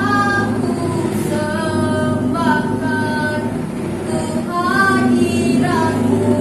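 A girl's voice reciting a religious poem in a drawn-out, sing-song delivery, with several long held notes.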